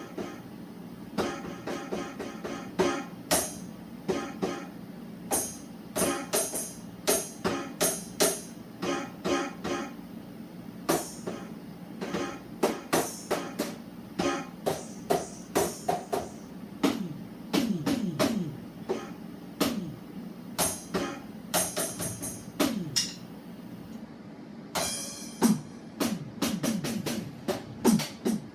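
A run of electronic drum and sound-effect hits played one after another, a couple a second, some with a short pitched ring. In the second half many hits are falling laser zaps that drop quickly in pitch, over a steady low hum.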